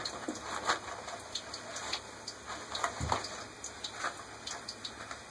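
Cat rustling and tearing at a roll of toilet paper in a bathtub: scattered soft crinkles and ticks, with a dull thump about three seconds in.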